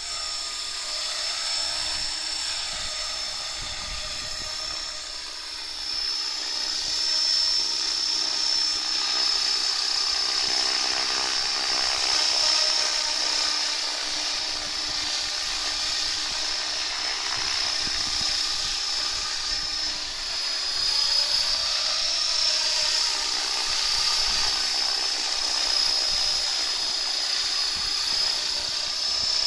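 Align T-Rex 500 flybarless electric RC helicopter hovering: a steady high whine from its motor and drive, over the whoosh of the spinning rotors, wavering a little in pitch.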